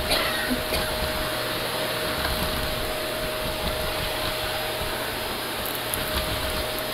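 A Shark Navigator upright vacuum running steadily while it is pushed over a wooden floor. It gives an even rush of air with a steady motor whine, and a few small clicks come about a second in and again near the end.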